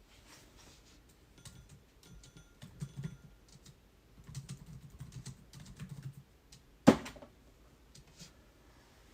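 Typing on a computer keyboard in scattered short runs of clicks, with a single sharp knock about seven seconds in.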